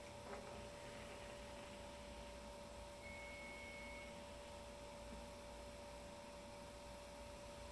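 Near silence: a faint, steady electrical hum, with a brief thin high tone about three seconds in.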